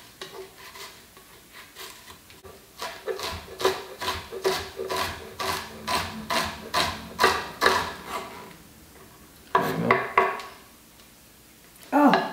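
Chef's knife finely chopping an onion on a wooden cutting board: a steady run of sharp knocks, about two to three chops a second, strongest in the middle. A brief voice sound comes near the end.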